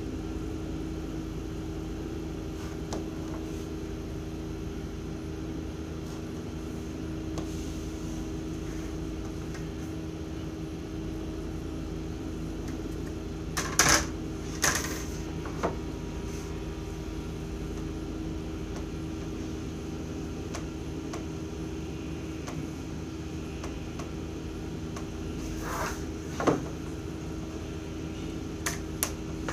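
Steady mechanical room hum, with a few sharp clacks of clear plastic drafting rulers and set squares being moved and set down on the drawing table: a cluster about 14 seconds in, another near 26 seconds and more near the end.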